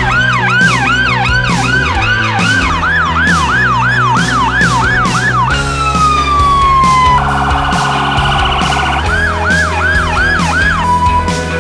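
Emergency vehicle sirens over background music with a steady beat: a fast yelp for about five seconds, then a long falling sweep, a rapid warble, and the fast yelp again.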